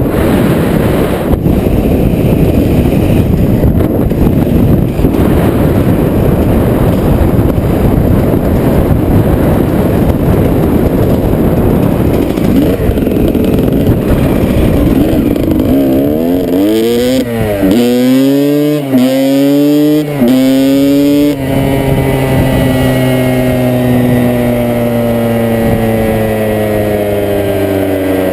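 Strong wind buffets the microphone in a loud low rush. About sixteen seconds in, a vehicle engine accelerates through several gear changes, its pitch climbing and dropping four times. It then holds a slowly falling note as it eases off.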